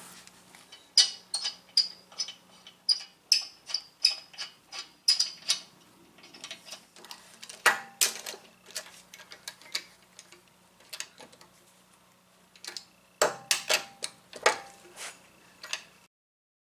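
Light metallic clicks and ticks of hand tools at work on a car's stabilizer bar link during reassembly, coming in runs of about two or three a second with a sparser spell in the middle and another flurry near the end. A faint steady low hum lies underneath.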